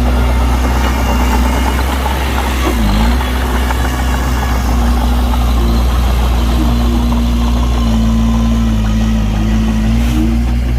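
Heavy diesel engine of a dump truck or bulldozer running steadily with a deep rumble; its pitch dips briefly about three seconds in and wavers slightly near the end.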